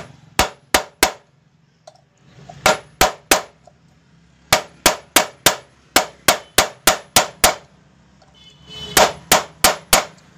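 Metal-on-metal hammer blows on a nut set against a washing machine's metal pulley plate, knocking its seal open. Sharp ringing clangs in four bursts of three, three, about ten and four, roughly three strikes a second.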